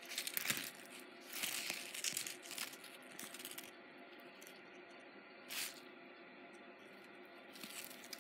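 Small clear plastic bag crinkling and rustling as tangled necklace chains are pulled out of it and handled, in several short spells with one sharp crackle about five and a half seconds in.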